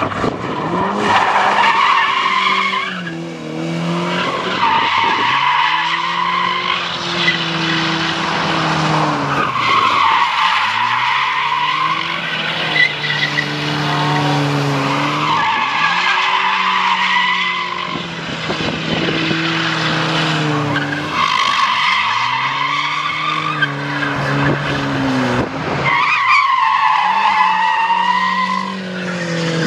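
Ford Ka being spun hard in circles: its engine revs up and drops again every few seconds while the tyres squeal in long screeches as the car slides on the tarmac.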